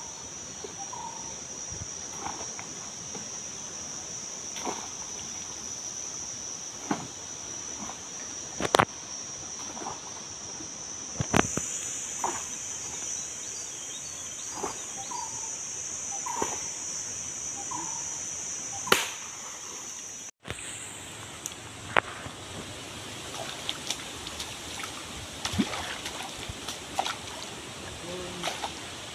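Steady high-pitched drone of insects with occasional short bird chirps and a few sharp splashes as a man wades through a shallow stream. After an abrupt cut about two-thirds of the way through, running water and sloshing with small clicks and splashes as a cast net is hauled in by hand.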